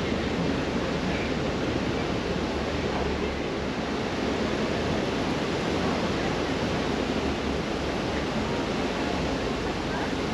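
Steady road and wind noise of a car driving along a city street: an even low rumble with a hiss over it.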